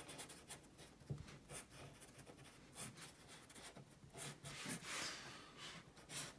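Black marker pen scratching on paper in many short, quick strokes, faint, with one longer stroke about five seconds in.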